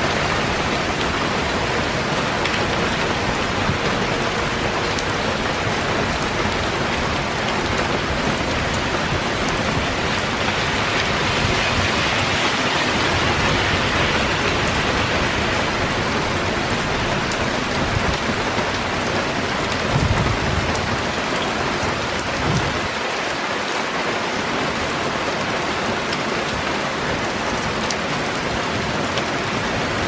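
Heavy rain falling steadily on trees, leaves and pavement: a constant, even hiss of rain, with a brief low rumble about two-thirds of the way in.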